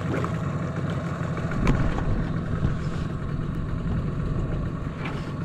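Boat's outboard motor idling steadily, with one brief click about a second and a half in.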